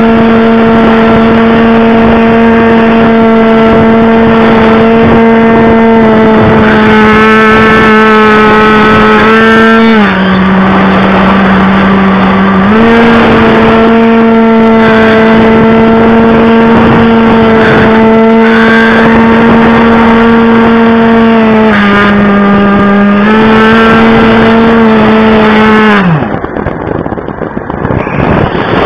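The electric motor and propeller of an Art-Tech Wild Hawk RC plane whining at a steady pitch, picked up by the onboard camera with loud wind rush. The pitch drops twice for a few seconds and comes back up. About 26 seconds in, the motor spools down and cuts off, leaving only wind noise.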